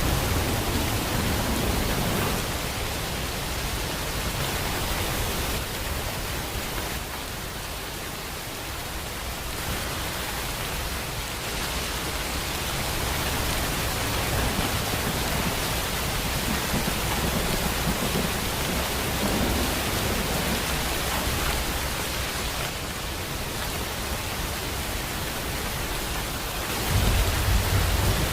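Steady heavy rain, an even hiss. A low rumble of thunder fades out over the first two seconds, and another rolls in near the end.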